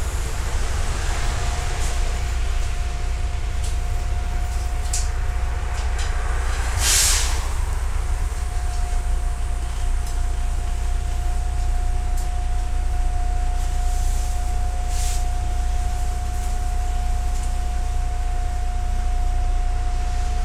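MAZ-105 city bus running on the road, heard from inside the cabin: a steady low rumble of engine and road noise with a thin steady whine over it. About seven seconds in there is a short hiss, and the whine drops out for about a second around it.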